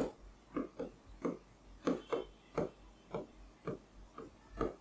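A pen writing on an interactive whiteboard screen: a quick run of short scratching strokes, two or three a second, as a line of handwriting is put down.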